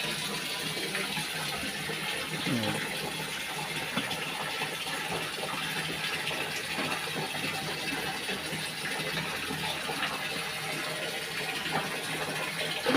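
Steady rush of running water in a single-tub washing machine, at an even level throughout.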